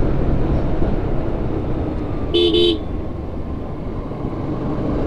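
Motorcycle engine and road noise while riding, with one short horn beep in two quick pulses about two and a half seconds in, while passing a three-wheeler.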